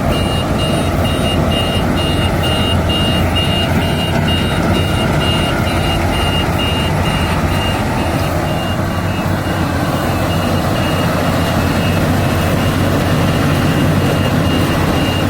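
Yanmar AW82GV combine harvester's engine running steadily under load, with a high electronic warning beeper pulsing about three times a second. The beeping fades in the middle and then returns. It is the machine's alert that the grain tank is full.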